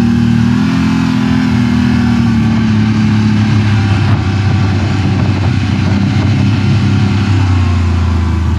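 CFMoto CForce ATV engine running under way on a dirt trail, the pitch lifting slightly in the first second, easing back a couple of seconds in, then holding steady.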